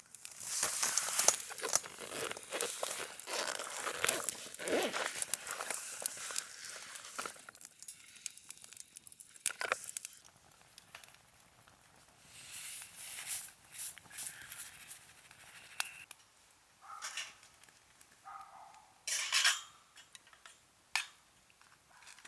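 Handling noises: crinkling and rustling with light clicks and clinks, dense for the first several seconds and then in short scattered bursts.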